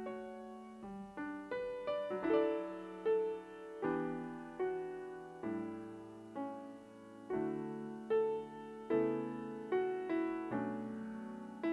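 Solo piano playing a slow piece, with chords and single notes struck roughly once a second, each ringing on and fading away.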